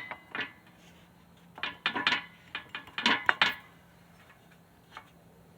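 Metal sockets and tools clinking and rattling as a wheel-stud press setup is fitted together, in short clusters of knocks separated by pauses.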